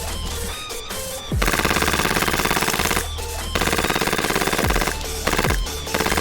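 Background music with a heavy beat and bass line. Two loud stretches of rapid, even buzzing pulses come about a second and a half in and again near the middle.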